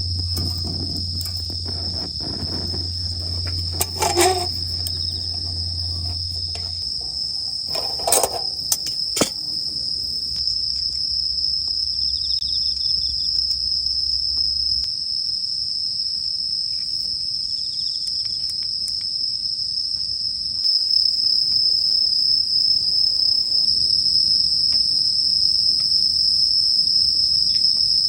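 A steady, high-pitched insect chorus trilling without a break, with a few sharp clicks about four seconds in and again around eight to nine seconds. It grows a little louder near the end.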